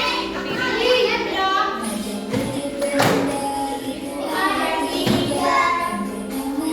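Children singing together with music, with a single sharp knock about three seconds in.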